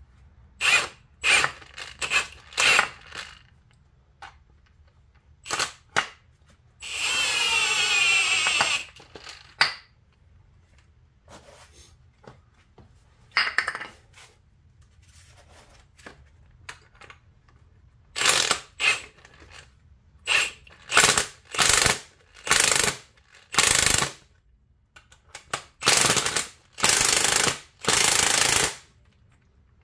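Power tool run in short bursts, driving the threaded rods of a coil spring compressor to compress a strut spring. There is one steadier run of about two seconds, and a quick string of bursts in the last third.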